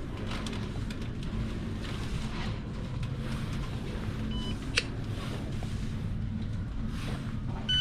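Steady low hum of a supermarket's checkout area with a few short electronic beeps from self-checkout scanners, a faint one about four seconds in and a louder one near the end, and a single sharp click just before five seconds.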